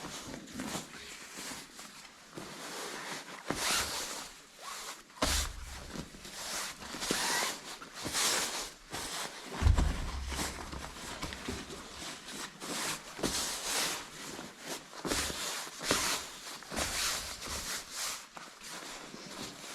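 Fabric rustling and rubbing in irregular strokes as jacket cloth is handled and pressed onto a glued seat, with a few knocks; the loudest is a single thump about ten seconds in.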